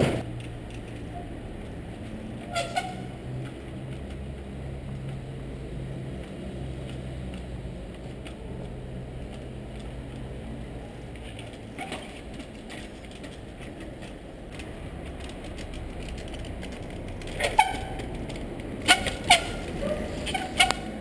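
Trials bicycle hopping on concrete: sharp knocks of the tyres landing, one a few seconds in, one about halfway, and a cluster near the end, some with a short squeak. Under them, a steady low engine hum from street traffic fades out about halfway.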